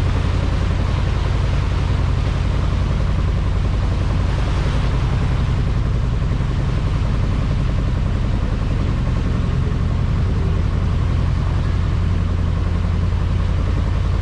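Tour boat's engine running steadily, a deep even drone heard from on board.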